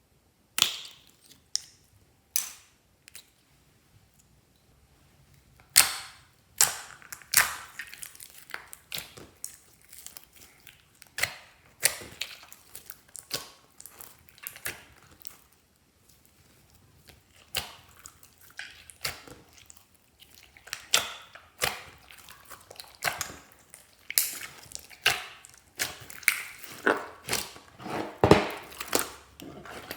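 Slime being kneaded and folded by hand, store-bought slime worked into clear slime, giving irregular sharp pops and clicks as air pockets burst, with a few short pauses.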